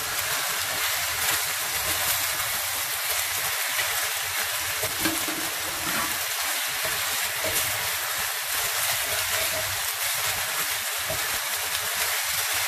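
Diced chicken thigh and onions sizzling steadily in oil in a cast iron roasting dish, with a wooden spoon scraping as it stirs them.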